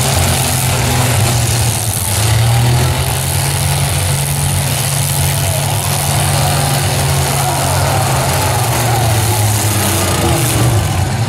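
Engines of a pack of demolition-derby pickup trucks and vans running together, a steady low rumble.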